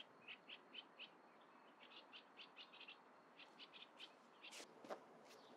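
Faint birds chirping: a run of short, high chirps, several a second, with two sharp clicks a little before the end.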